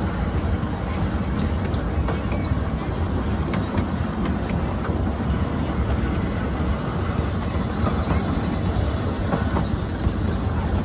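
Cars of a miniature ride-on railroad rolling steadily along the track: a low wheel rumble with many light, irregular clicks from wheels and rail joints.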